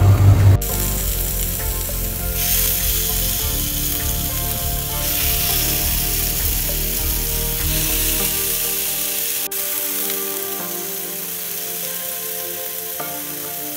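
Marinated chicken breast skewers sizzling as they sear in a grill pan, a steady frying hiss that eases off over the second half. It opens with a brief loud low rumble that cuts off after half a second.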